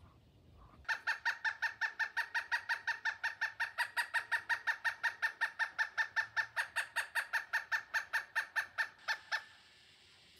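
Pileated woodpecker calling: a long, even series of ringing notes, about five a second, starting about a second in and stopping near the end.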